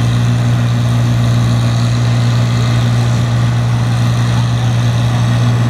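A farm stock tractor's engine running hard under load as it pulls a weight-transfer sled, a loud, steady engine note that holds its pitch throughout.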